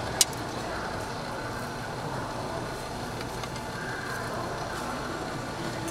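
Metal tongs setting bunny-shaped breads onto a griddle tray, with one sharp click of metal just after the start and a few fainter ticks later, over steady background noise.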